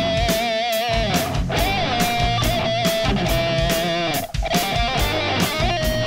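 Rock music with electric guitar: held lead notes that bend and waver, over a steady drum beat.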